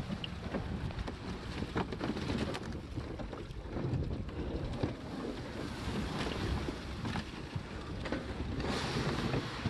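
Running noise of the MTT-136 tracked robotic vehicle and the plastic sled it tows, rumbling and knocking irregularly over wet ground, grass and snow, with wind buffeting the microphone.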